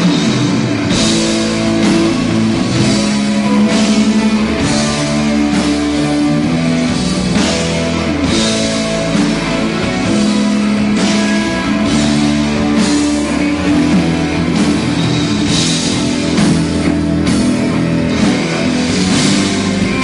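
Live band music with electric guitar and a steady drum beat under held notes. It is heard from among the audience in a concert hall.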